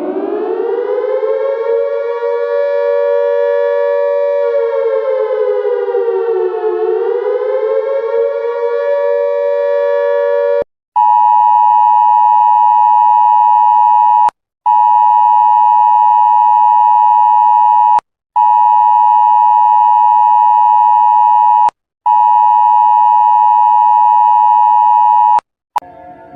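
A civil defense siren winding up to a steady two-note wail, dipping once in pitch and rising again, then cutting off. An Emergency Alert System two-tone attention signal follows, sounding four times in bursts of about three and a half seconds with short breaks.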